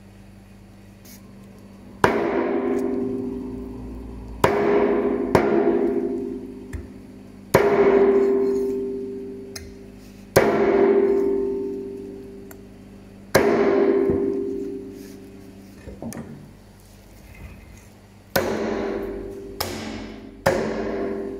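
Percussion music: slow, deep drum strikes with long ringing decays, about one every two to three seconds, coming faster near the end.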